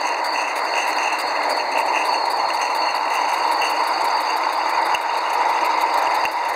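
Gas-fired 45 mm gauge live steam geared locomotive with a T-boiler running along the track: a steady hiss with a fast, even clatter from its engine and gearing.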